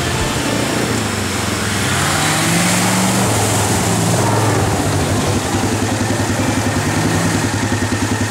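Suzuki Samurai's engine revving hard under load as the 4x4 ploughs through a muddy water hole, with water and mud splashing. The engine pitch climbs about two seconds in, then holds with a fast, even pulsing.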